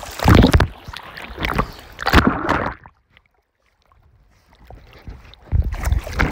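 River water splashing and sloshing right at the microphone, in three loud surges, with a stretch of near silence between the second and the third.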